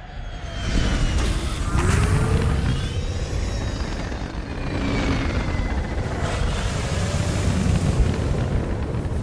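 Jet engines of a vertical-landing aircraft rumbling loudly as it comes in and hovers to land, swelling up over the first second and then holding, with a whine rising about two seconds in.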